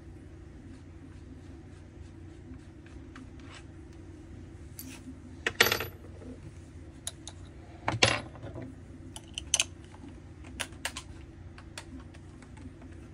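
Scattered clicks, clinks and knocks of tools and small metal parts being handled while a string trimmer's engine is reassembled. Two louder knocks come about five and a half and eight seconds in, then a quick run of sharp clicks. A steady low hum runs underneath.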